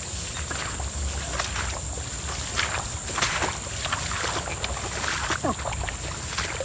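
Footsteps swishing through tall grass, with a steady low rumble of wind on the microphone.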